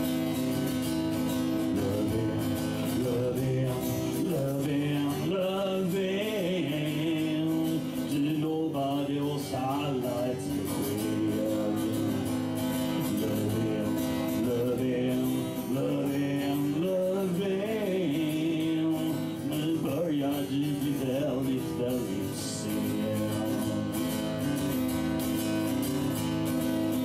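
Acoustic guitar played steadily, with a man's singing voice coming in at times over it.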